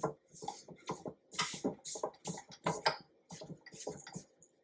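Spatula scraping and knocking against the inside of a stainless steel stand mixer bowl while working thick buttercream frosting loose from the bottom: a quick, irregular run of short scrapes and taps.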